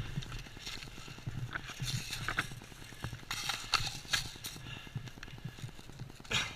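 Irregular knocks and clicks from an airsoft player moving and handling gear, such as footfalls, kit rattling and magazine or gun handling after a call to reload.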